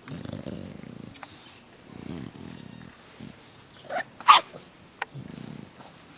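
English Bulldog puppies making low grunts and growls in several short spells, with two short, sharp yelps about four seconds in.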